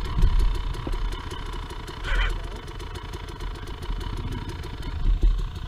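Two-stroke dirt bike engine idling steadily.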